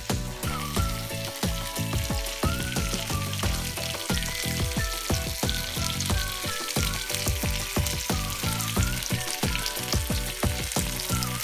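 Rava-and-chilli-coated Indian mackerel (bangda) shallow-frying in oil on an iron tawa, sizzling steadily with many small crackling pops.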